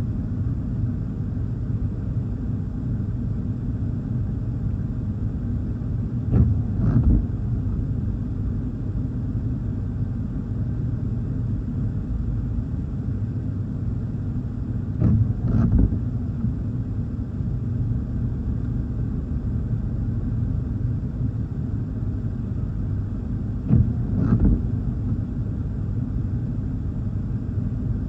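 Car windshield wipers on intermittent sweep three times, each sweep a quick pair of swishes about every nine seconds. Under them runs a steady low rumble, heard from inside the car in wind-driven rain.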